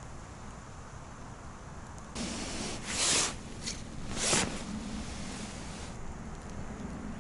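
Rustling and swishing of a winter jacket as an ice angler shifts and reaches down toward the hole, starting about two seconds in, with two sharper swishes a little over a second apart.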